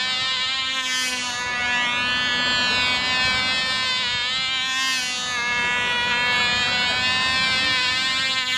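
Small Cox .049 glow engine of a control-line Cox Stuka model buzzing at high revs as the plane circles. The high, steady whine swells and its pitch bends about every four seconds as the plane sweeps past on each lap.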